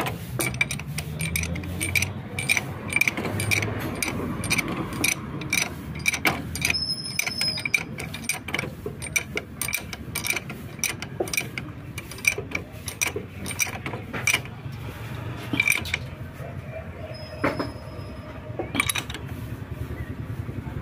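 A new spark plug being screwed into a motorcycle engine's cylinder head and tightened with a 16 mm ring spanner: many light, irregular metal clicks and clinks of the spanner and plug against the head.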